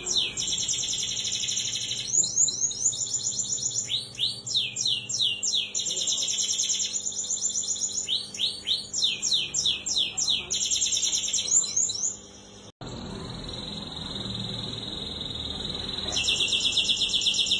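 Domestic canary singing a long song of fast rolling trills, runs of rapid repeated high notes one after another. The song cuts out suddenly about two-thirds through and comes back as a dense, steady trill near the end.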